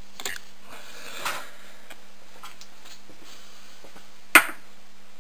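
Two soft scrapes of a flux pen being rubbed across the circuit board pads, then a single sharp click near the end, over a steady low hum.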